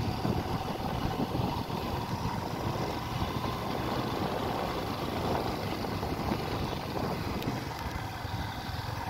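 Steady engine and road noise from a vehicle travelling along a road, a dense rushing sound heaviest in the low end.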